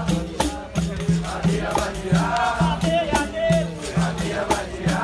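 Capoeira Angola roda music: berimbaus and pandeiros, with an atabaque drum and an agogô, playing a steady rhythm with a low pulse about three times a second, under call-and-response singing.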